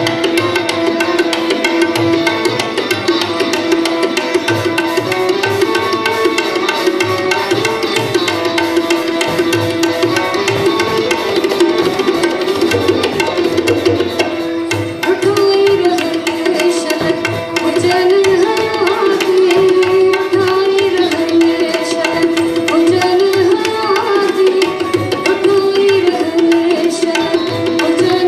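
Live Sindhi folk song: tabla keeps a steady beat under a sustained melodic instrument. In the second half a woman's singing voice comes in through the microphone.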